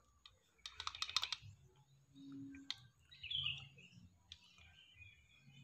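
Faint plastic clicking and rattling from a blender blade assembly being handled, with a quick cluster of clicks about a second in; its blade shaft sits loose in the housing. A bird chirps briefly midway.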